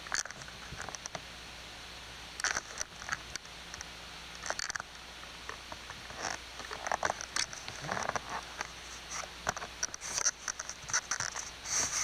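Irregular rustling and crackling close to a camcorder's microphone, over a steady hiss and a low hum.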